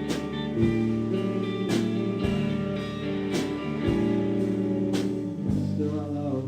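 Guitar playing held chords with a regular beat of sharp strokes, an instrumental stretch of a song with no singing.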